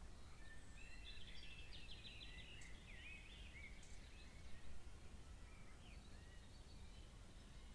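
Faint bird song: a rapid twittering phrase of chirps and short trills in the first few seconds, then scattered single calls, over a steady low background rumble.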